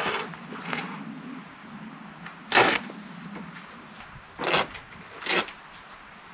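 Truck camper's manual roll-out awning being set up: four short scraping rattles as its arms and support legs are slid and set in place, the loudest about two and a half seconds in.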